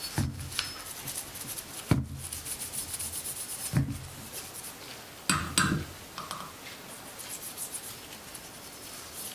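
A small brush scrubbing carbon buildup off an AR-15 bolt carrier group: rapid scratchy strokes on the metal, with a few knocks as the part is handled.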